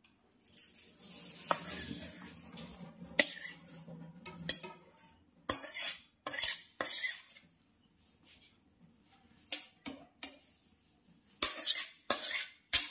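Metal spatula scraping and clinking against a steel wok as cooked greens are scraped out into a small steel bowl. A steady scrape runs over the first few seconds, then come short scrapes and clinks separated by pauses.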